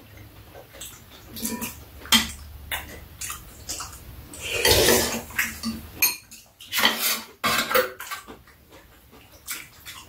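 Metal spoons and chopsticks clinking and scraping against ceramic bowls as two people eat, in many short, irregular clicks. About five seconds in there is a louder, noisier sound lasting about half a second.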